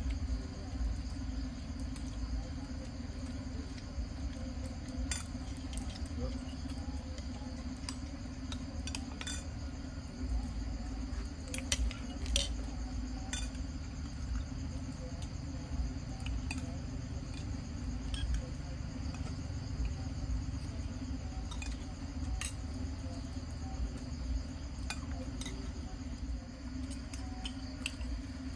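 Scattered light clinks and taps of spoons and dishes during a meal, over a steady chorus of insects and a low rumble.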